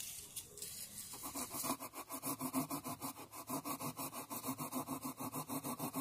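A blade sawing back and forth through the wall of a styrofoam cooler to cut a round hole for a fan: quick, even scraping strokes that start about a second in.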